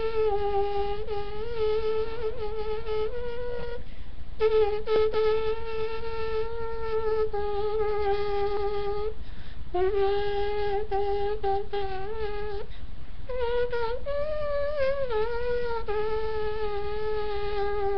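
A mouth trumpet: a person imitating a trumpet with the lips and voice, playing a slow melody of long held notes with small slides in pitch and brief breaks between phrases.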